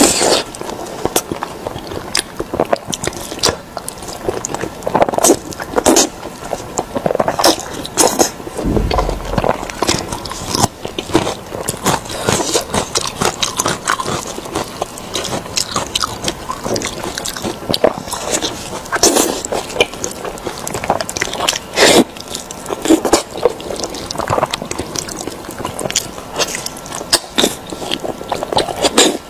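Close-miked chewing and biting of braised beef tendon: a steady stream of irregular mouth smacks and clicks, with a low bump about nine seconds in.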